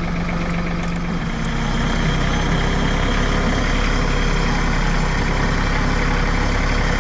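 John Deere tractor engine running, picking up speed about one and a half seconds in, then holding a steady, slightly louder note.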